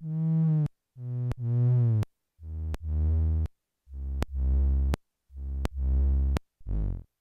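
Twin T filter circuit pushed into oscillation by a slow square-wave trigger pulse, sounding a string of short synth-like tones about once a second. The tones are pitched, with many overtones, and each one is marked by a sharp click at its edges from DC offset that is still to be dealt with. The pitch steps down from a low hum to a deeper one over the course of the tones.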